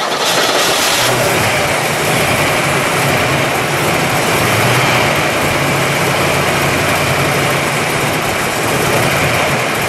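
1969 Camaro ZL1's 427 cu in all-aluminum V8, just started and running at a steady idle.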